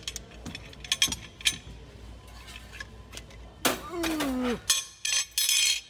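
Steel wrenches clinking against each other and their display hooks as they are knocked and handled, several sharp clinks. Partway through a short vocal sound slides down in pitch, and near the end there is loud rustling from the puppet and hand against the microphone.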